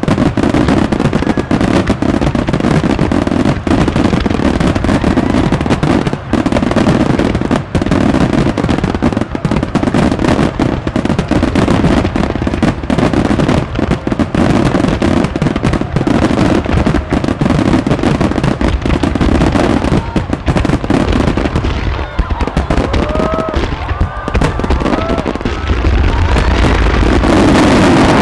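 Starmine fireworks barrage: a dense, continuous run of aerial shell bursts and crackling, loud throughout, with a few short whistling tones late on and a deeper rumble building near the end.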